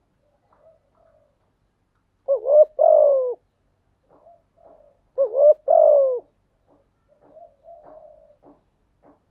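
Spotted dove cooing: two loud phrases about three seconds apart, each a quick rising-and-falling double note followed by a longer coo that slides down in pitch. Softer, shorter calls come between the phrases and near the end.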